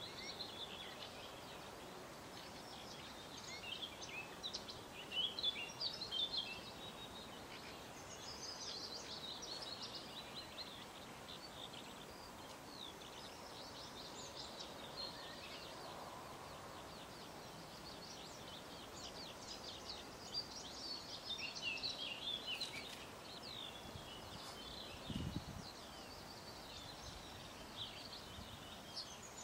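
Songbirds singing and chirping in bursts of quick high notes and trills over a faint outdoor background. A brief low thump sounds late on.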